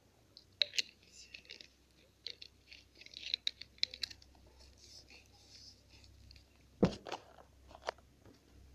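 Small scattered clicks, ticks and scrapes of plastic slime-kit containers being handled while water is added to the glue, with a sharp knock about seven seconds in and a lighter one a second later.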